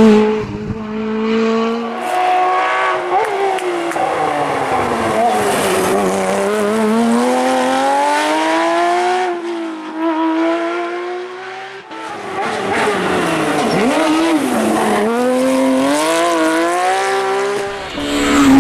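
Rally cars on a special stage, engines revving up and down through gear changes and corners, loudest as a car passes near the start and again at the end.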